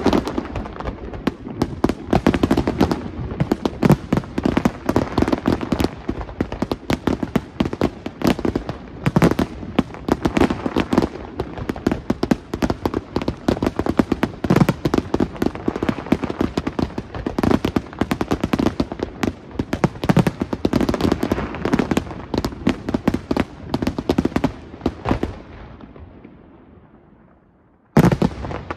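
Fireworks display: a dense, rapid barrage of shell bursts and launches, many bangs a second. It trails off to almost nothing about 26 seconds in, then a sudden loud burst opens the next barrage just before the end.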